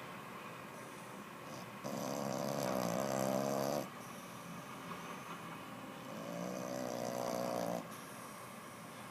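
Four-month-old Boston Terrier puppy snoring loudly in his sleep: two long snores, each about two seconds, a few seconds apart.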